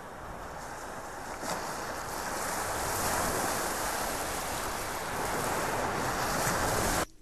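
Steady rushing noise that swells over the first few seconds and cuts off abruptly near the end.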